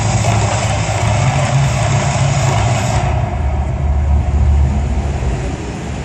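The Mirage Volcano erupting: a loud, deep rumble under the rushing hiss of gas flame jets on the lagoon. The hiss cuts off about three seconds in as the flames go out, leaving the low rumble, which swells briefly and then eases toward the end.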